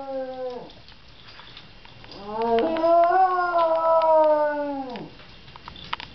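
Schnauzer howling, set off by a fire truck's siren: one howl trails off with a falling pitch at the start, then after a short pause a long howl of about three seconds swells, rises slightly and drops away at its end.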